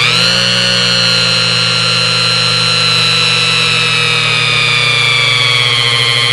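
Electric motor whirring steadily at speed: a whine made of several steady tones over a low hum. The pitch sags slightly near the end.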